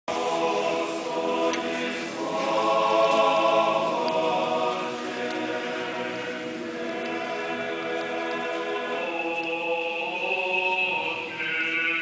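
Orthodox church choir singing liturgical chant a cappella: slow, held chords that change every few seconds, with higher voices coming in near the end.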